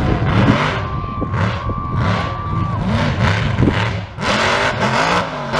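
Mega truck engine running and revving in repeated surges, its pitch rising and falling. A steady single tone is held for about two seconds about a second in.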